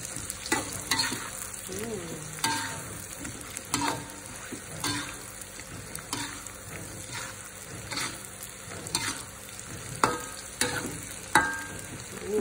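Stir-frying in a wok: a metal spatula scrapes and knocks against the pan about once a second, some strikes leaving a short metallic ring, over a steady sizzle of sliced garlic, shallots and ginger frying in hot oil.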